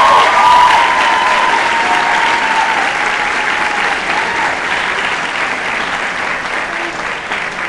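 Audience applauding loudly, with high cheers ringing over the clapping for the first few seconds; the applause then slowly dies down.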